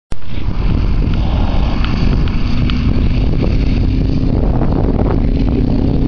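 Wind buffeting the microphone, a steady low rumble. Under it, from about two and a half seconds in, the even drone of a light aircraft's engine in the distance, the plane out on its takeoff run.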